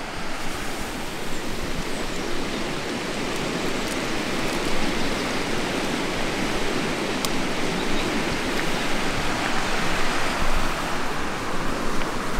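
Steady rushing of a fast-flowing mountain stream, an even wash of water noise.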